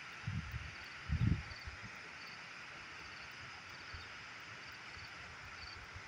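Steady rush of river water running over rocks and a low dam, with faint high chirps above it and two low bumps on the microphone in the first second and a half.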